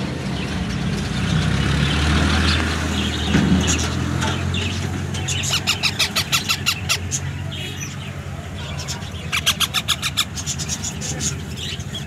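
Parakeet chicks giving two rapid runs of short harsh calls, about eight a second, over a low steady hum.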